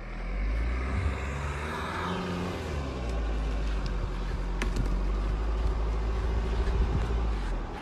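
Jeep Renegade's engine running steadily under load as the SUV climbs a sandy bank, dropping away just before the end.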